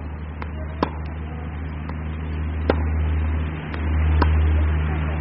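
Tennis ball struck by rackets: sharp pops every second or two, some louder than others, over a steady low rumble that grows louder a little past the middle.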